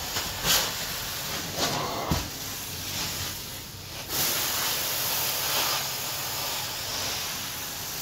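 Carpet-cleaning extraction wand hissing steadily as it sprays and vacuums water through greasy carpet, with a few knocks in the first couple of seconds. The hiss grows stronger and steadier about four seconds in.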